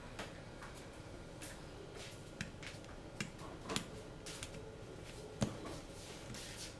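Scattered light clicks and taps of small tools and parts being handled on a workbench, the loudest about five and a half seconds in.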